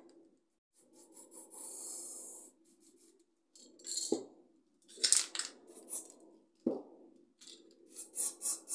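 Aerosol spray-paint can sprayed in short hissing bursts. The first, about two seconds in, lasts under a second, and a quick run of about five short bursts comes near the end.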